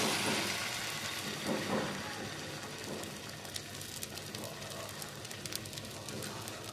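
Omelette batter of beaten egg, chopped onion, tomato and chilli sizzling in hot oil on a flat iron tawa, a steady hiss with many small crackles. It is loudest just after the batter hits the oil and slowly dies down as the egg starts to set.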